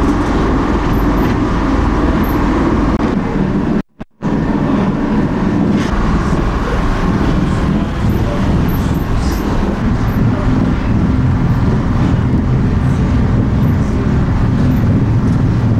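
Diesel railcar running along the line, heard from inside the driver's cab: a steady drone of engine and wheels on the rails. The sound cuts out for a moment about four seconds in.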